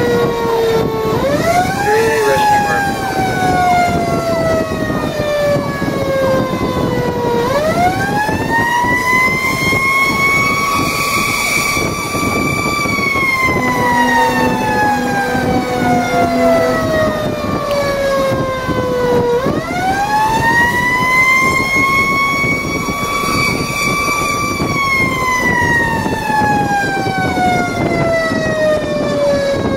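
Fire engine's siren heard from inside the truck's cab, winding up three times. Each time the pitch climbs quickly, holds for several seconds, then slowly falls away. The truck's engine and road noise run steadily underneath.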